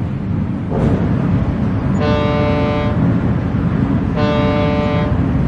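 Ship's horn sounding two long blasts, each about a second, over a steady low engine rumble: a departing-liner sound effect.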